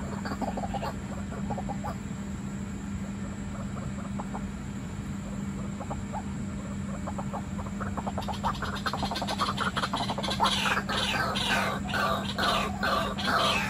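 White-breasted waterhen calls: a fast, rhythmic run of repeated notes that is faint at first, then from about eight seconds in grows loud and dense. A steady low hum runs underneath.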